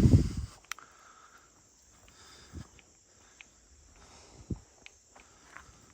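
Faint, steady evening insect chorus, crickets among it. Over it come a few soft knocks and rustles of handling, with a loud low rumble of handling noise at the very start.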